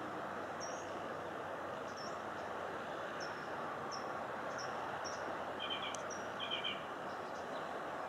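Steady outdoor background noise, with small birds chirping: a short high chirp repeated every half second to a second, and two lower double chirps a little after the middle.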